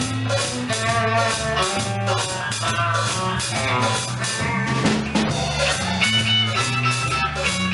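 Live rock band playing, with drum kit, electric guitar and bass, heard as a sound-check run-through.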